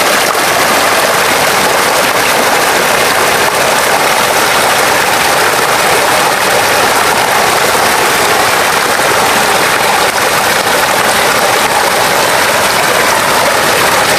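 Steady rushing of water spouts pouring into a spring-fed pool, an even, unbroken splashing hiss.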